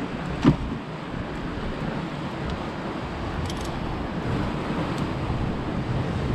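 Steady wash of sea surf and wind on rocks, with a sharp clink of climbing gear about half a second in and a few faint clicks later as rope, sling and carabiners are handled.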